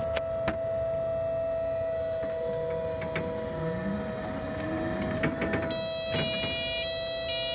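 Raymond electric reach truck driving: a steady electric whine from its drive system, with a lower motor pitch rising as it gathers speed, then clicks and clunks as it is stopped abruptly. A stepped electronic beeping pattern starts near the end, as the abrupt stop trips the truck's error code 6D, which cuts out the lift hydraulics.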